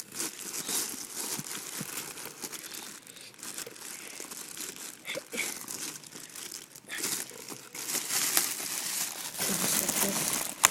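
Plastic packaging crinkling and rustling as ceiling-fan parts are worked loose from their box, with irregular crackles that grow louder near the end.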